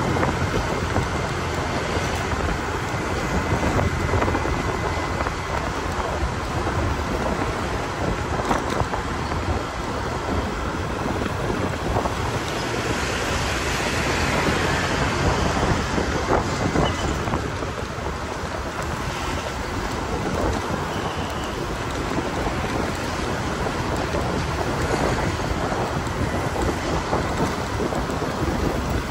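Wind rushing over the microphone of a camera on a moving motorbike, a steady rough noise with the bike's road and engine noise underneath.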